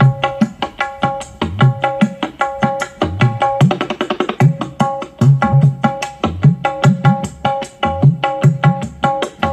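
Music played through a PA sound system with Nogosari 118 subwoofers: a fast hand-drum (kendang-style) rhythm over low kicks, with a short two-note melodic figure repeating, and a denser drum fill about four seconds in.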